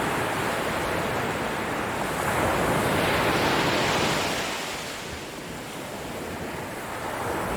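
Sea surf: waves washing on the shore as a steady rushing that swells about two seconds in, eases off for a couple of seconds, then builds again near the end.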